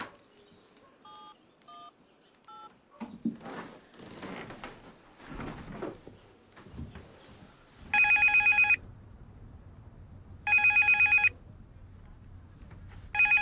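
Three short keypad beeps as a number is dialed on a mobile phone, then some rustling. Then a telephone rings in three short trilling bursts, about two and a half seconds apart.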